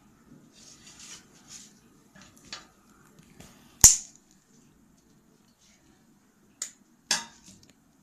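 Scissors and paper being handled on a hard, glossy table top: faint paper rustling, then one sharp loud click about four seconds in and two smaller clicks near the end.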